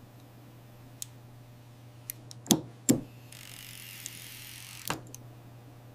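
Scattered small mechanical clicks from watch movement parts and tools being fitted, over a low steady hum. A soft hiss comes in around the middle for about a second and a half.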